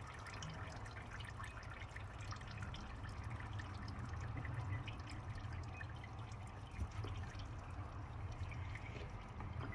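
Engine oil trickling and dripping into a drain bucket as the oil filter is loosened, many small irregular drips over a steady dribble.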